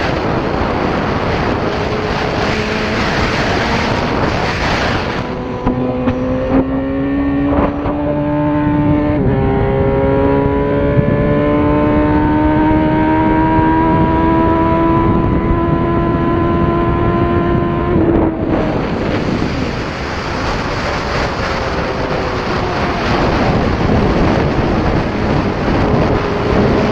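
Suzuki GSX-R1000 K6's inline-four engine pulling hard through the gears at speed: its pitch climbs steadily, drops back at each upshift about six and nine seconds in, then rises again. Heavy wind rush on the helmet-mounted camera runs throughout and covers the engine at the start and after about eighteen seconds.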